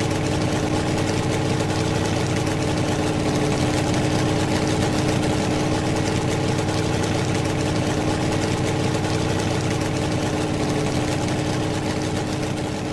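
Steady engine idling sound effect: a constant rumble with a fixed hum, no revving, easing off slightly near the end.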